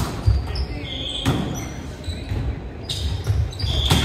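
A ball being struck and bouncing on a hard gym floor, four sharp knocks spread over a few seconds, with two high sneaker squeaks on the court, one about a second in and one near the end.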